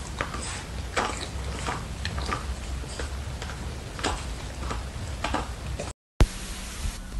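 French bulldog puppy licking and smacking its lips after a yawn: an irregular run of wet mouth clicks, one or two a second. The clicks stop suddenly about six seconds in.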